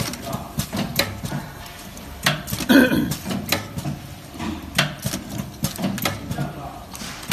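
Automatic blister packing machine running: a steady low hum under repeated sharp mechanical clacks, spaced unevenly. A brief louder burst comes about three seconds in.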